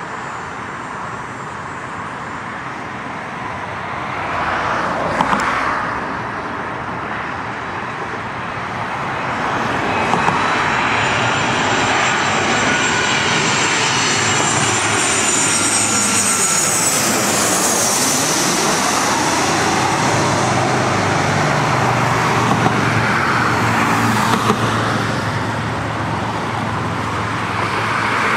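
Twin-engine jet airliner passing low overhead on landing approach. The engine noise swells from about ten seconds in, and a high fan whine sweeps down in pitch as the jet goes over, after which the engine noise stays loud.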